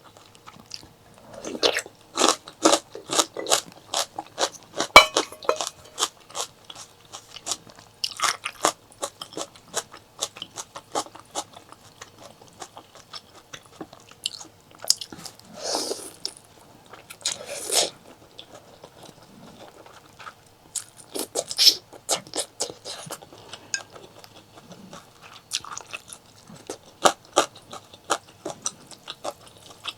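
Close-miked eating: biting and chewing with many sharp, wet clicking crunches in quick runs, and two longer noisy swells near the middle.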